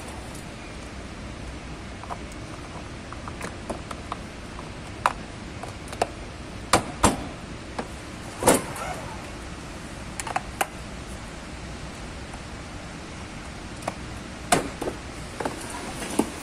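Scattered clicks and knocks of hard plastic parts on a children's ride-on electric car being handled, with a hand on its plastic wheel and frame, over a steady background hiss. The knocks come irregularly, a few louder ones with a short ring.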